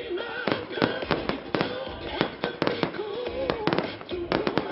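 Fireworks display: aerial shells bursting in a rapid, uneven string of sharp bangs, several a second, over music playing with a wavering melody.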